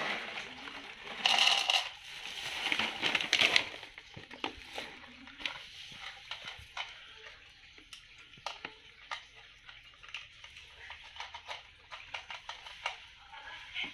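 Dry cat kibble poured from a plastic bag into a plastic bowl, with bag rustling and rattling, in the first few seconds; then a cat crunching the dry kibble, a run of small irregular crunches.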